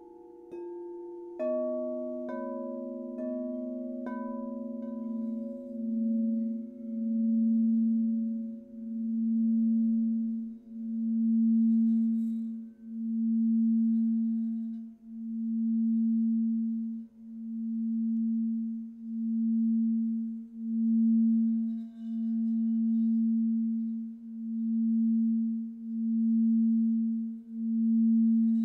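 Quartz crystal singing bowls struck a few times in the first four seconds, each note ringing on. Then a large crystal bowl is played by rubbing a wand around its rim, building one sustained low hum that swells and fades in slow, regular pulses about every second and a half.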